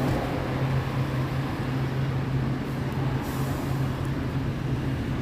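Steady drone of nearby road traffic, with a constant low engine hum running underneath.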